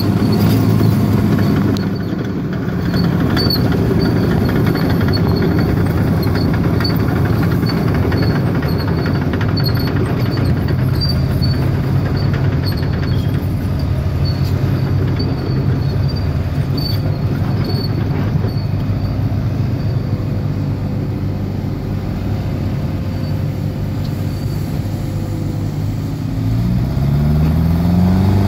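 Heavy diesel engines of a Terex TS-14 scraper and a Cat D6H crawler dozer running steadily, then revving up together in a rising pitch about two seconds before the end as the dozer starts push-loading the scraper.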